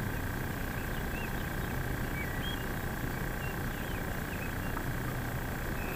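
Birds chirping now and then, short high calls, over a steady outdoor background rumble.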